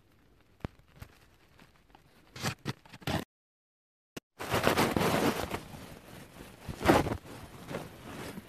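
Duvet rustling and fabric rubbing right against a phone's microphone as it is handled: a few soft scrapes, a second-long dropout to dead silence about three seconds in, then loud continuous rustling.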